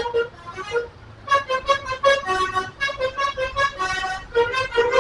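Telolet bus horn, a multi-tone musical air horn, playing a quick tune of short chord notes over and over.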